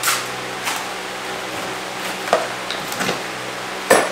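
Steady workshop hum, like a fan or extractor, with a few scattered sharp knocks and clatters of handling and footsteps on a concrete floor. The loudest knock comes near the end.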